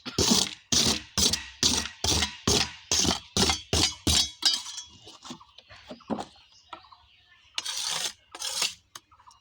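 Rapid, regular knocks or strikes, about two a second, which stop about four seconds in; after a few faint scattered noises come two longer, louder noisy bursts near the end.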